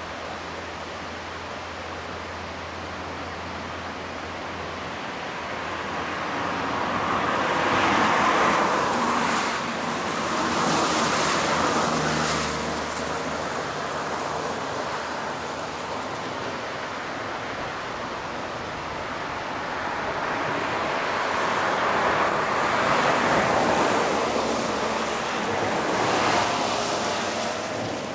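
KiHa 40 diesel railcar: a low steady engine hum that stops a few seconds in, then two long swells of rumbling running noise, the first with a few sharp clacks near its peak.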